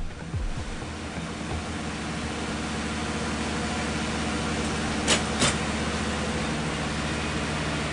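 Ship's engine-room machinery running: a steady drone with low humming tones underneath. About five seconds in there are two sharp knocks, close together.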